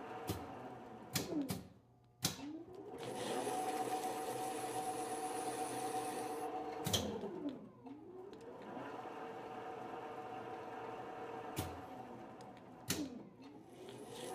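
Standard Modern lathe running a thread-cutting pass with the half-nut kept engaged: a steady motor and gear hum, broken by sharp clunks as the controls are thrown. The pitch drops and climbs back as the spindle is stopped and reversed, about two seconds in, around seven seconds in and again near the end.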